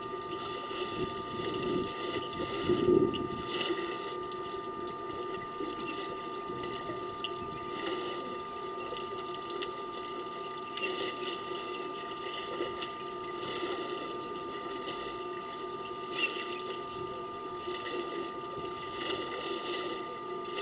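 African elephants drinking at a waterhole, their trunks sloshing and splashing in the water, with a louder swell about two to three seconds in, over a steady hum.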